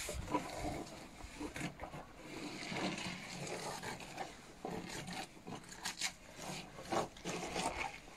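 Chopped cabbage and carrot being handled by hand in an enamel bowl: a moist rustling and crunching in irregular strokes.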